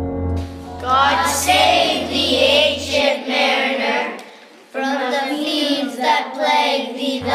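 Children singing a song over a sustained accompanying chord. The accompaniment drops out about three seconds in and comes back near the end.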